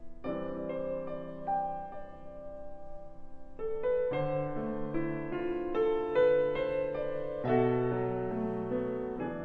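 Background piano music: a slow melody over held chords.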